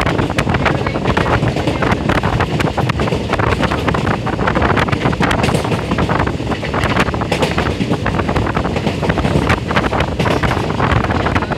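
Passenger train coach running at speed: steady running noise of wheels on rails, with dense, irregular clatter and rattling, and wind buffeting the microphone.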